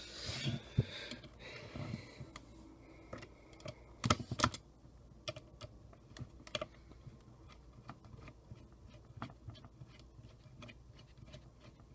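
Light, irregular clicks and ticks of a small Phillips screwdriver working the tiny screws of a camcorder's hard-drive enclosure, with a louder pair of clicks about four seconds in.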